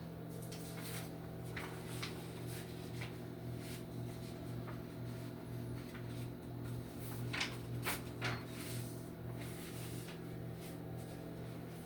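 Steady low hum with scattered light knocks and clicks, a few in the first three seconds and a louder cluster around seven to eight seconds in.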